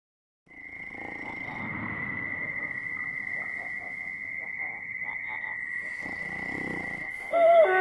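Night ambience: a continuous high trill, steady in pitch with a fast flutter, over faint background noise, starting about half a second in. Just before the end a dog starts to howl, a falling, wavering howl.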